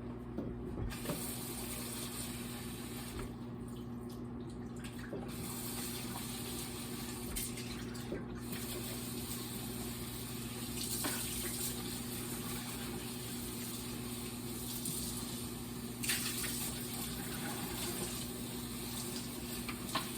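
Kitchen tap running into a sink while food containers are rinsed out. A microwave oven's steady hum runs underneath.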